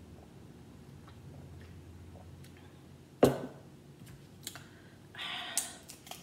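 A cup set down on a wooden table with one sharp knock about three seconds in, followed by a few light clicks and a short plastic rustle as a laptop charger is handled.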